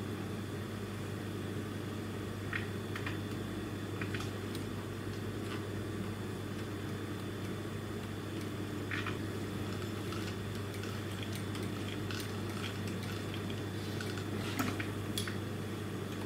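Industrial sewing machine's motor humming steadily with a thin high whine. Scattered light clicks and rustles come from synthetic leather and fabric being handled under the presser foot.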